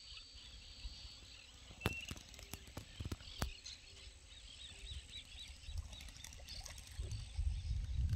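Quiet wetland ambience: small birds chirping in quick repeated high notes, a few sharp clicks in the first half, and wind rumbling on the microphone that builds near the end.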